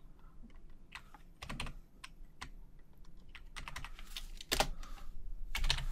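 Typing on a computer keyboard: scattered key clicks, sparse at first and quicker from about three and a half seconds in, with the sharpest presses about four and a half seconds in and near the end.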